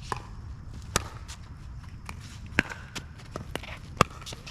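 Pickleball rally: paddles popping against the plastic ball, four sharp hits spaced about one to one and a half seconds apart, with smaller taps between them.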